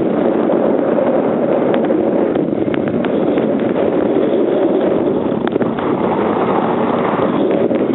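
Strong wind buffeting the microphone while sailing in a fresh breeze: a steady loud rushing noise, with a few faint clicks.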